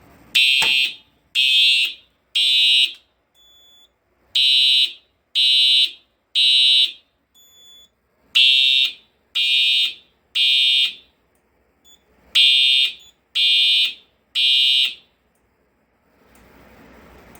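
Simplex 4903-series horn strobe sounding the temporal code 3 evacuation pattern: groups of three short, high-pitched blasts, each group followed by a pause, repeated four times before it stops. The horn is re-sounding because a new alarm from a smoke detector, tripped with a magnet, has come in after the earlier alarm was silenced.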